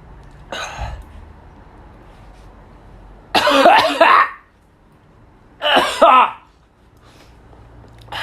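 A man coughing and clearing his throat in harsh bouts, a short one near the start, two loud ones in the middle and a short one at the end, choking on the burn of a Jigsaw superhot chili pepper he is struggling to swallow.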